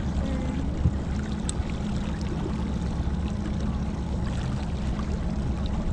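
A 60 hp outboard motor running steadily at trolling speed, a low, even hum, with water churning in its wake.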